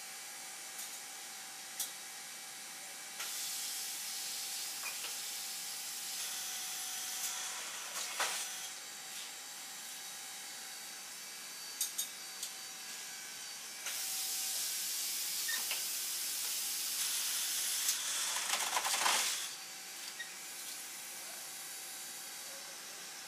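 Compressed air hissing on a CNC machine's pneumatic system, in two long stretches of several seconds each, with a few sharp clicks and knocks between them over a faint steady machine hum.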